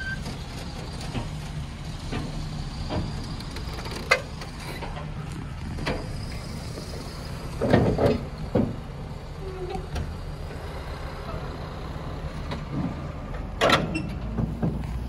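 Diesel engine of a truck hauling a boulder-laden low-loader trailer idling with a steady low rumble, with a few short knocks and thumps, the loudest about halfway through and near the end.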